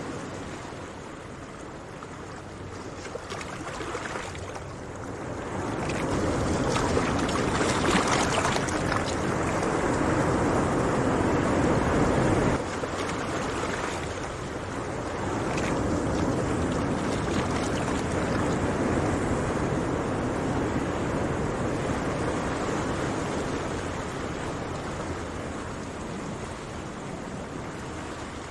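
Sea surf washing in on the shore, a steady rushing noise that swells and falls back in long surges, with one sudden drop midway.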